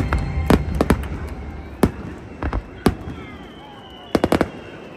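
Fireworks bursting overhead in an irregular series of sharp bangs and cracks, with a low rumble in the first second and a quick cluster of cracks near the end.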